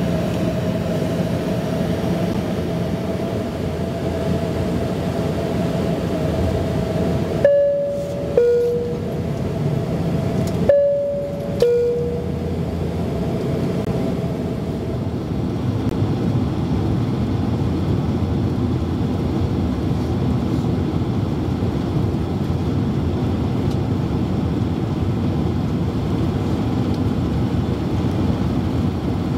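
Steady airliner cabin noise. A two-note falling ding-dong chime, the cabin chime, sounds twice a few seconds apart.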